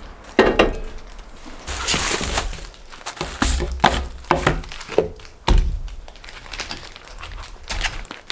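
A cast iron skillet set down with a clank on a camp stove's grate, followed by a run of knocks and clatters as a plate and other cooking things are put down and handled on a picnic table.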